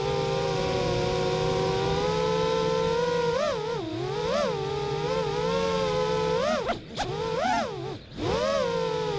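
Racing quadcopter's brushless motors and propellers whining, heard close up from the onboard camera: a steady whine that swings up and down in pitch several times from a few seconds in and drops away sharply twice near the end.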